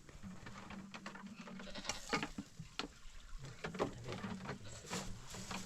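Sheep and goats bleating, with many short sharp clicks and knocks scattered throughout.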